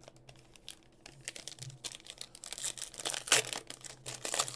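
Foil wrapper of a Prizm World Cup hobby card pack being torn open and crinkled: a quick run of crackles that thickens about a second in and is loudest a little past three seconds.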